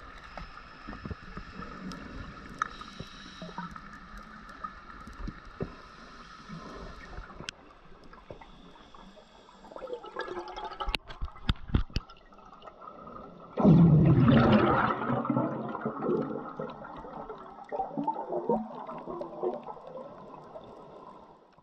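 Scuba regulator breathing underwater: a loud burst of exhaled bubbles rushes and gurgles about 14 seconds in and fades over a few seconds. Scattered clicks and faint steady high tones come before it.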